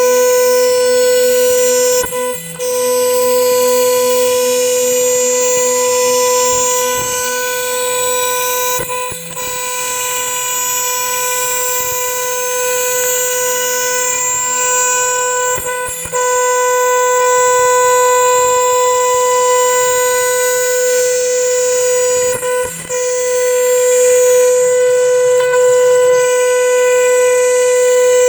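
CNC router spindle at 30,000 rpm with a 3 mm single-flute end mill cutting 6 mm HPL laminate, a steady high whine over cutting noise. The whine dips briefly four times, about every seven seconds.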